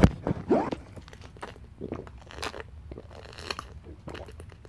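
A knock as the phone is handled, then a thin plastic water bottle crinkling with gulping and mouth sounds of someone drinking from it.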